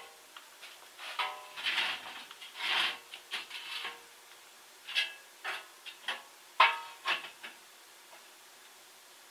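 Irregular metal clanks and knocks from a welded steel-tube frame being handled and knocked about, some clanks ringing briefly; the loudest comes about two-thirds of the way in.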